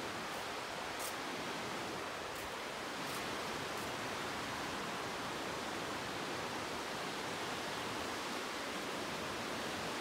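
Steady rushing of a fast, wide mountain river, the Katun, heard as an even hiss of water.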